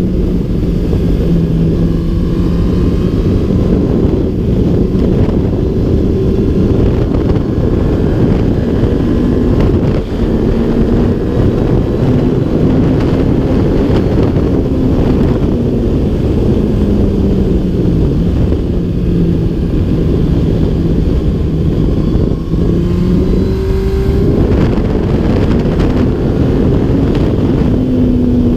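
2001 Yamaha R1's inline-four engine running on the road, its pitch stepping and gliding up and down with the throttle and gear changes, under heavy wind noise on the microphone.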